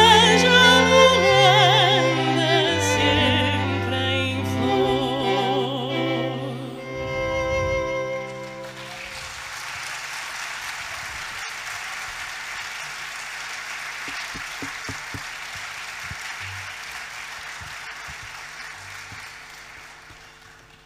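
Soprano singing with wide vibrato over a string quartet's sustained low notes, the piece closing about eight seconds in. Audience applause follows and slowly dies away.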